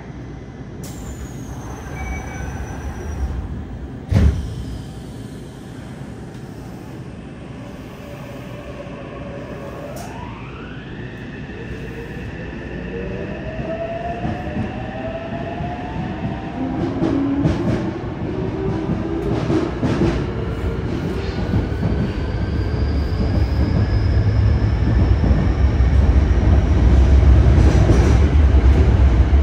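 Yokohama Blue Line 3000R subway train pulling out: the doors shut with a thud about four seconds in. Then the Mitsubishi IGBT-VVVF traction inverter whines in several tones that climb in pitch as the train accelerates, under a rumble that grows louder toward the end.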